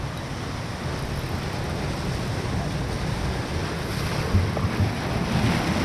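Surf washing on the shore, with wind buffeting the microphone in low rumbles and thumps; the wash grows a little louder near the end.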